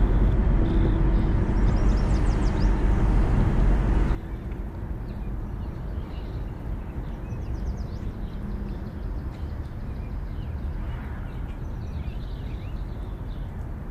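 Car road and cabin noise while driving, cutting down abruptly about four seconds in to a quieter steady hum as the car sits stopped at a red light.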